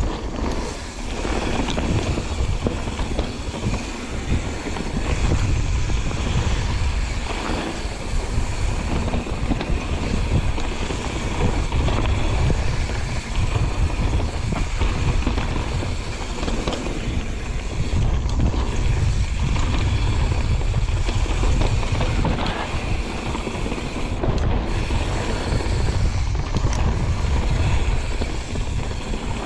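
Mountain bike riding down a trail: a steady low rush of wind on the microphone over tyre noise, with the odd knock and rattle from the bike over bumps.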